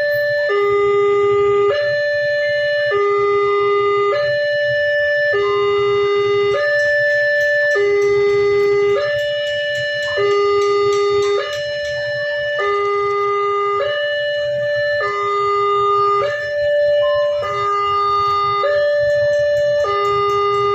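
Railway level-crossing warning alarm sounding: an electronic two-tone signal that alternates between a low and a higher tone roughly every second, over a low rumble.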